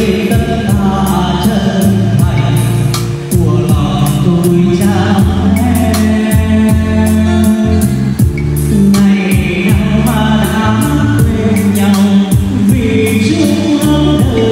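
A man singing karaoke into a microphone over a Bluetooth backing track with a steady beat, played through a pair of bookshelf speakers. The voice carries the digital echo of an F9 Pro karaoke mixer.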